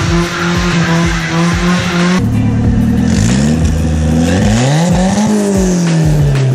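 Car engine at a steady high pitch, then an abrupt cut about two seconds in to an engine revving up in steps, as if through the gears, and falling away again near the end.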